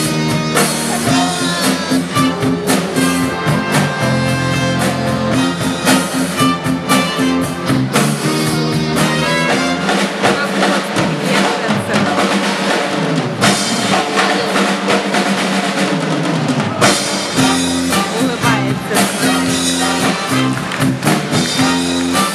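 Upbeat band music with a drum kit keeping a steady beat over bass and melody instruments; the bass thins out for a few seconds in the middle before the full band returns.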